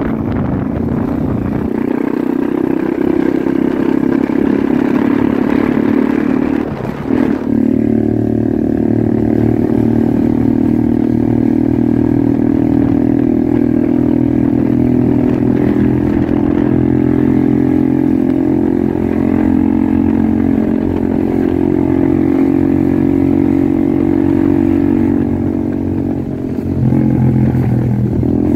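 Motorcycle engine running steadily while riding, heard from on the bike, easing off briefly about seven seconds in and again near the end.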